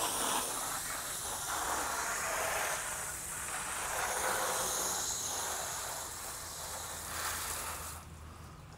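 Water spraying onto a motorcycle as it is rinsed down, a steady hiss that swells and dips as the spray moves over the bike, then stops near the end.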